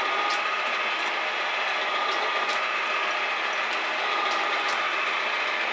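Metal shaper running and cutting a salvaged conveyor drive roller: a steady mechanical clatter with a constant high hum and a sharp click about once a second.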